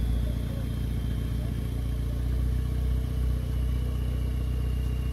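Off-road 4x4 vehicle's engine running steadily at low revs, with a faint high whine slowly falling in pitch.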